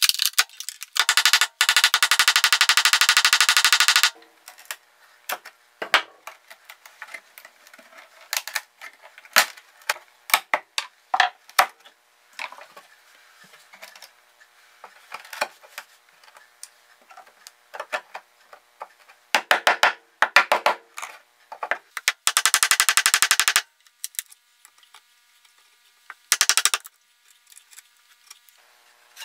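Knocks, scrapes and clicks of wood scraps being handled and pried around a cut opening in old wooden floorboards. Three loud bursts of very rapid rattling clatter stand out, near the start and about two-thirds of the way through.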